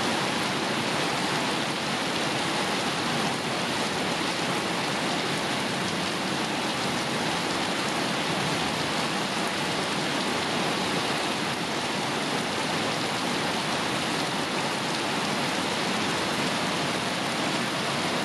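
Steady rain falling on the leaves of a mango tree, an even, unbroken sound that holds at the same level throughout.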